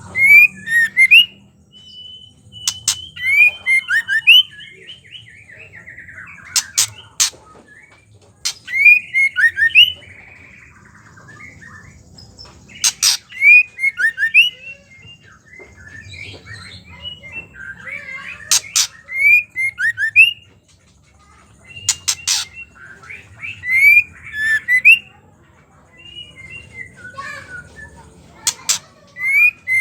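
Female white-rumped shama calling: short bursts of quick chattering, sweeping notes that recur every few seconds, with sharp clicks among the bursts.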